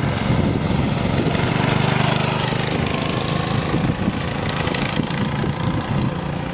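Briggs & Stratton 5 hp single-cylinder flathead engine on a mini bike running steadily with a fast, even putter.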